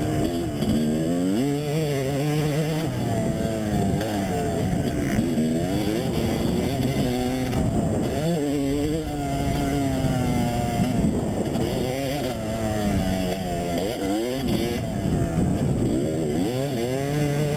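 Motocross dirt bike engine revving on the throttle, its pitch repeatedly rising as it accelerates and dropping back between pulls, several times over.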